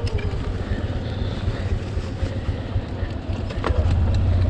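Motorcycle engine running under way, its note rising and falling faintly, beneath heavy wind rumble on the microphone. A single sharp knock comes about three and a half seconds in.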